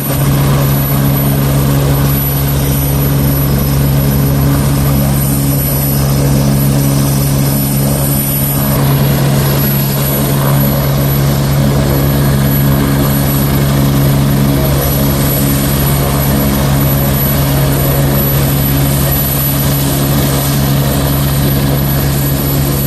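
Helicopter running steadily: a loud, even engine hum with a fast rotor flutter underneath and a thin high whine, with no change in pitch.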